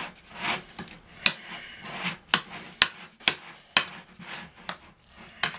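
Cutlery knocking and scraping against a plate while mashing and stirring a cottage cheese filling, with sharp knocks about twice a second and softer stirring between them.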